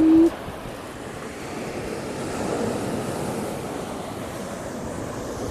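Rough surf breaking and washing on a shingle beach, with wind buffeting the microphone; the wash swells a little about two seconds in.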